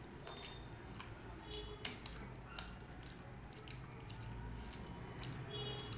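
Close, wet squishing and chewing of rice and dal while eating, with scattered small clicks.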